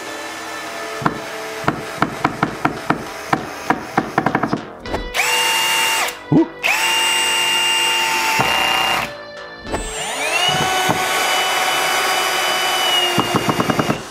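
Cordless 18 V combi drills driving a small screw into wood, one after another. A run of sharp clicks comes faster and faster, then comes a steady high motor whine. The whine later rises and holds, and ends in a quick burst of clicks.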